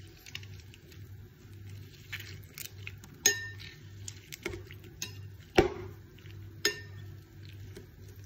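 Stainless-steel potato masher mashing strawberries in a bowl: irregular sharp clinks as the metal strikes the bowl, three of them loudest, a little after three, five and a half and six and a half seconds in, over a low steady hum.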